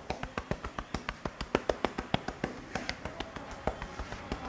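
Hands tapping and slapping a head in a fast, even rhythm during a percussive head massage, about seven or eight sharp smacks a second, loudest around the middle.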